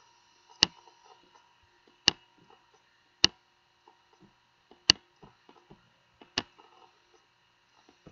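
Computer mouse and keyboard clicking: five sharp clicks about one and a half seconds apart, with softer ticks between them.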